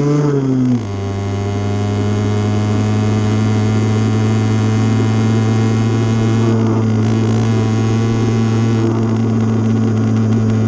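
80cc motor bike engine running while riding: in the first second its pitch rises and falls and the sound dips a little as the throttle is eased, then it settles into a steady drone.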